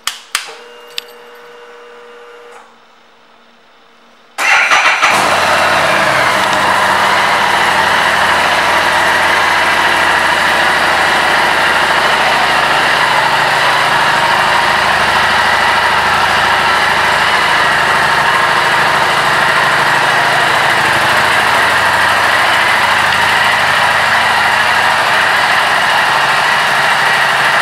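A 2017 Harley-Davidson Street 750's V-twin engine. A few clicks and a short steady hum come as the ignition is switched on. About four seconds in the engine starts and settles into a steady idle.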